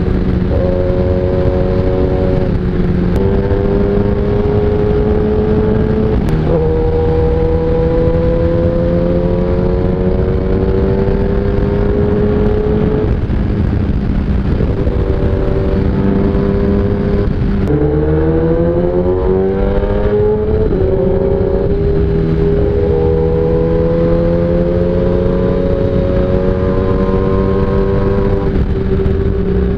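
A 1000cc inline-four superbike engine under way, its pitch climbing slowly as it pulls and dropping back several times, with one quick steep climb and fall about two-thirds through. Wind rushes over the rider's microphone throughout.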